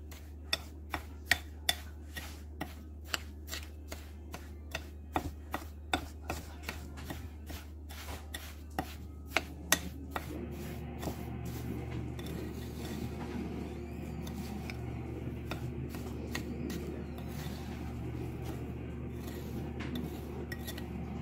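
A spoon stirring buttered cookie crumbs in a bowl: sharp clinks of the spoon against the bowl about twice a second for the first ten seconds, then a steadier scraping and rubbing as the damp crumbs are worked together.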